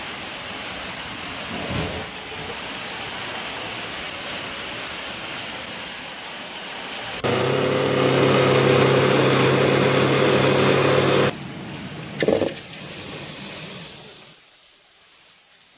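Electric countertop blender motor running steadily for about four seconds, grinding shallots and ginger into a paste, switching on and off abruptly. Before it a steady background noise runs for several seconds, and a short loud knock comes just after the blender stops.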